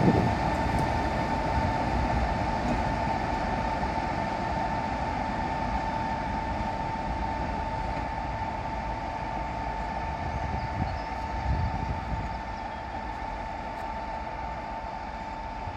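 Class 45/1 diesel-electric locomotive's twin-bank Sulzer 12-cylinder engine running with a low rumble and a steady high whine, fading slowly as the locomotive draws away at low speed to couple up to its train.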